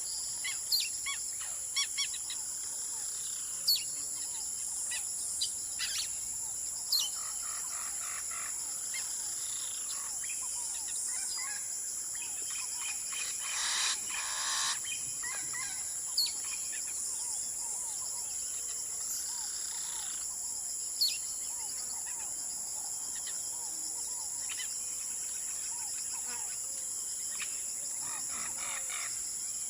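Birds chirping and calling outdoors over a steady, high-pitched insect drone. Short, sharp chirps recur throughout, and a longer call comes about fourteen seconds in.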